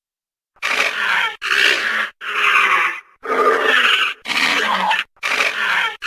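Dinosaur sound effect: a rough, growling call repeated six times, each under a second long, with short breaks between.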